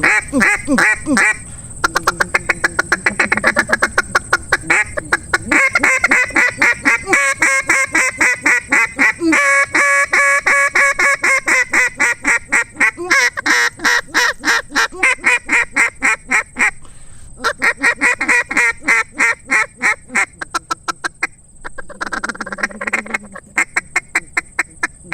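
Final Flight Calls D3 double-reed duck call blown in runs of quacks, some spaced and some rapid, with short pauses between the runs. It is a mid-range call with a little rasp to it. A steady high insect drone runs underneath.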